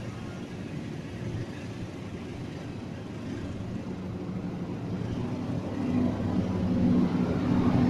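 Passenger train coaches rolling past, a steady rumble of wheels on the rails that grows louder over the last few seconds.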